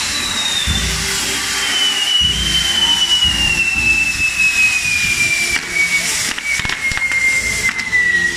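Castillo fireworks tower burning: a steady loud hiss of fireworks, over which one long whistle falls slowly in pitch, with a few sharp cracks in the second half.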